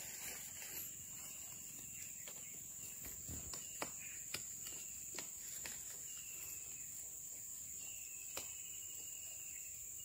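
Steady high-pitched insect drone, with short falling chirps repeating about once a second and a few sharp knocks and scuffs from a man climbing a tree trunk.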